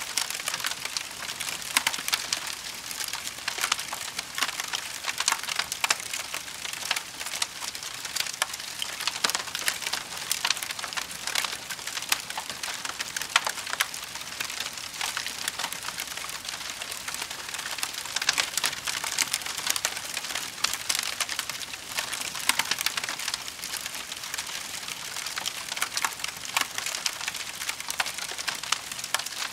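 Campfire burning with steady, dense crackling and frequent sharp pops of burning wood.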